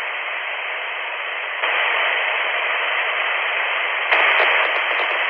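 Retevis Ailunce H1 DMR handheld's speaker giving out FM receiver hiss with the squelch open, as a weak 2 m test signal from a signal generator sits near the radio's sensitivity limit. The hiss steps louder twice, about a second and a half in and again about four seconds in, as the test signal is turned down.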